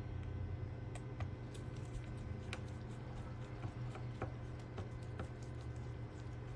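Scattered light clicks and taps of small repair tools working on a smartphone, about seven in all, at irregular intervals over a steady low hum.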